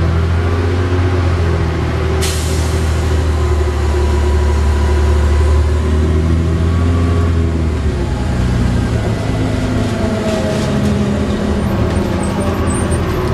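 Cummins-engined Volvo Olympian double-decker bus under way, its engine and ZF gearbox heard from inside on the upper deck. About two seconds in there is a sudden hiss of released compressed air from the bus's air system, and the engine note changes about eight seconds in.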